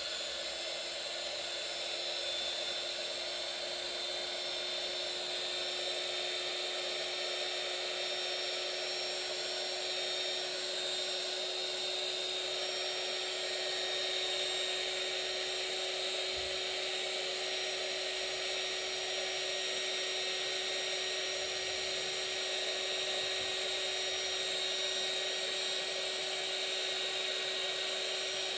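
Craft heat tool running steadily, blowing hot air over a wet watercolour card to dry it: an even rush of air with a constant motor whine.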